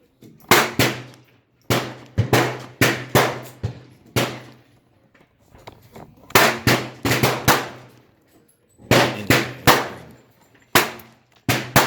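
Gunshots fired in quick strings of three to six, about twenty sharp reports in all, each with a short ringing tail, over a faint steady low hum.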